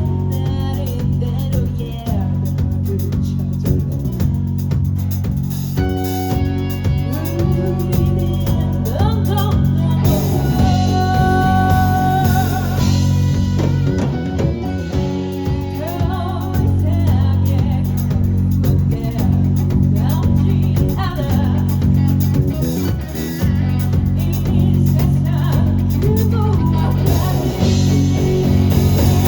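A rock band playing live, with electric guitar and a drum kit and a voice singing over them.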